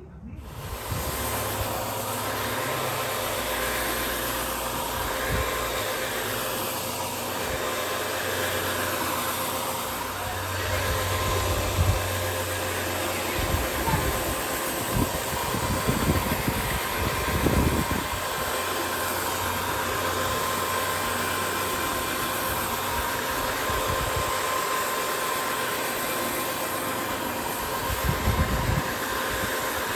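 Electric rug scrubbing machine running steadily with a constant hum as it is worked through shampoo foam on a wet rug. It comes on suddenly about half a second in, with a few low bumps in the middle and near the end.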